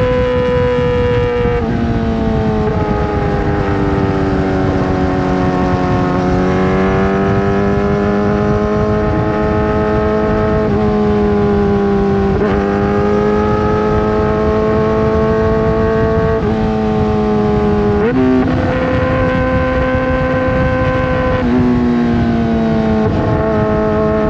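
Kawasaki ZX-4RR's 399 cc inline-four engine with an aftermarket full exhaust, running at steady mid-range revs under way. Its pitch rises and falls slowly and jumps suddenly up or down several times as gears change.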